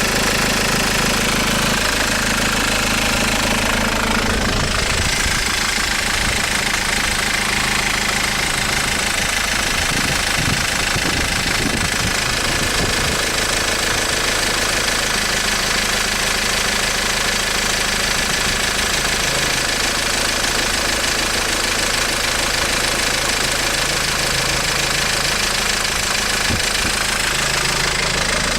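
Engine running steadily with a rapid, even knocking in its sound.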